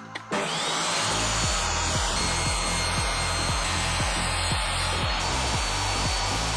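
Electric power tool starting up and running steadily on wood. Its thin motor whine rises briefly, about half a second in, and then holds. Background music with a steady beat plays underneath.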